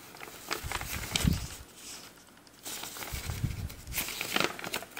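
Pages of an old paper booklet being handled and turned, with dry paper rustling in two spells and a short lull in the middle.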